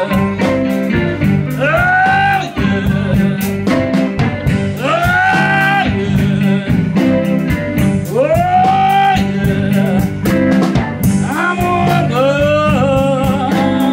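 Live blues band playing: an electric guitar takes lead lines, bending notes up and holding them with vibrato about every three to four seconds, over a steady bass line and drums.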